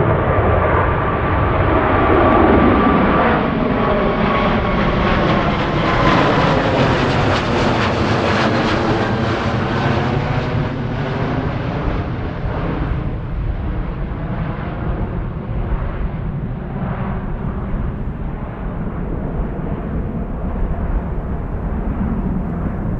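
Jet airliner passing close by. Its engine whine drops in pitch about two seconds in. The rushing jet noise is loudest about eight seconds in, then fades slowly as the aircraft moves away.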